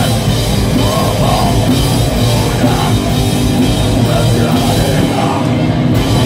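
Live groove metal/hardcore band playing loud: distorted guitar and bass over a pounding drum kit, as one dense, unbroken wall of sound.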